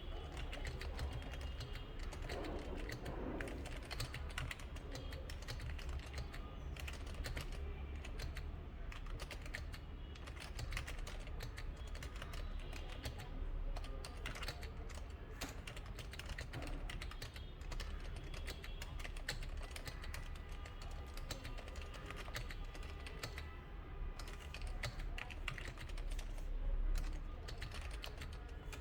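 Unmodded Razer Huntsman V2 keyboard with linear Razer optical red switches being typed on continuously: a dense, unbroken stream of quick key clacks.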